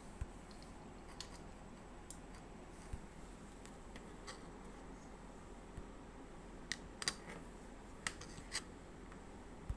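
Faint, scattered small clicks and taps from hands handling a 9 V battery and its snap-on connector, most of them near the end, over a steady low hiss.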